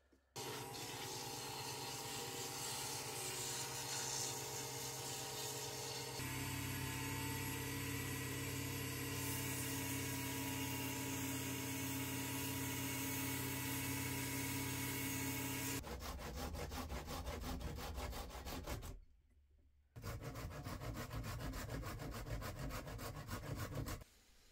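Wood being cut or shaped, a steady hum under scraping noise. From about 16 seconds in it turns into a fast, even run of strokes, broken by a second-long silence near 19 seconds.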